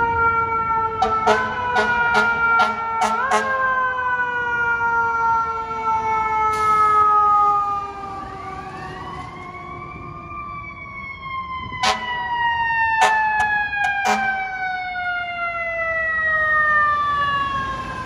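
Fire truck mechanical siren winding down in a long falling whine, revved back up in short steps a few times, with clusters of quick air-horn blasts about a second in and again about twelve seconds in. A second, fainter siren rises and falls in the middle.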